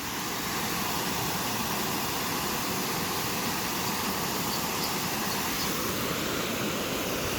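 Steady, even rushing of a large waterfall, a constant wash of falling water.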